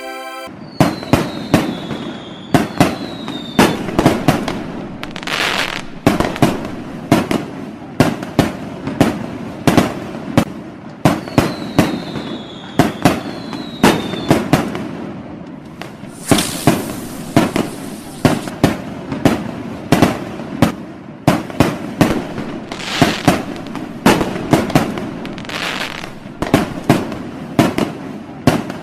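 Fireworks going off in a dense, continuous barrage of sharp bangs and crackles. Falling whistles come twice, about a second in and again about eleven seconds in, and a hissing rush comes about sixteen seconds in.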